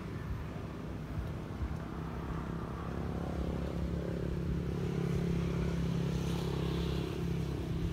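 A small engine running at a steady pitch, its hum growing louder about three seconds in.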